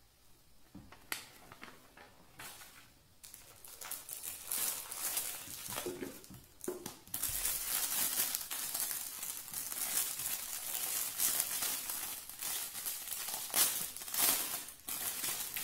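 Clear plastic packaging bag crinkling and rustling as it is handled around a makeup brush case. Faint at first with a few light taps, then louder and denser from about halfway through.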